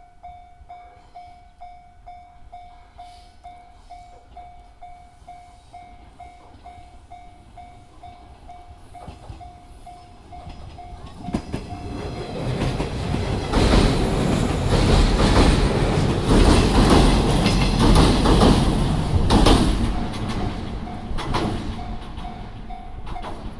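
Level-crossing warning bell ringing about twice a second. A JR 115-series electric train then passes close by, loud, with its wheels clicking over the rail joints, and fades as it draws away. The bell is heard again near the end.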